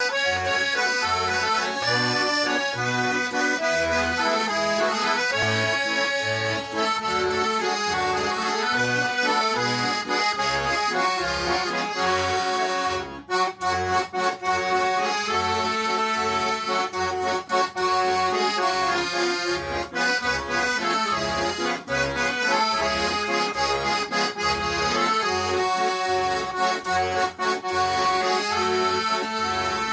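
Two button accordions, a bayan and a Weltmeister, playing a song tune as a duet: the melody sits over a steady pulsing oom-pah bass. The playing breaks off for a moment about 13 seconds in, then carries on.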